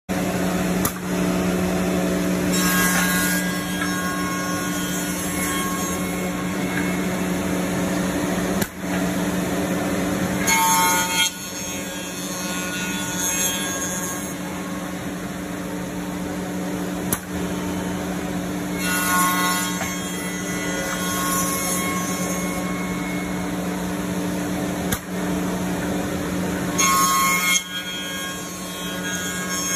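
MDK3113B CNC tenoning machine running with a steady motor hum. Every several seconds there is a louder, higher-pitched burst of cutter noise as it cuts into the wood, along with a few sharp clicks.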